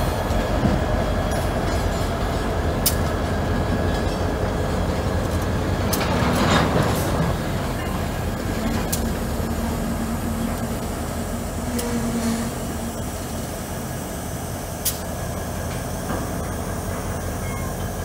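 CSX diesel road-switcher locomotive rolling slowly past with its engine running, a steady low rumble. A few sharp knocks from the train come through, and there is a brief rushing swell about six seconds in.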